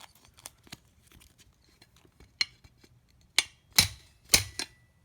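Hammer tapping the small sprung metal tab of a snap-rail tool-hanger connector to bend it down, so that the connector will click into the rail. A few light clicks come first, then four sharp metallic taps in the second half, the last three about half a second apart, with a short ring.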